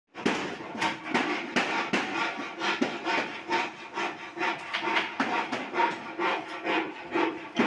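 Rhythmic rasping strokes on wood-like material, about two to three a second.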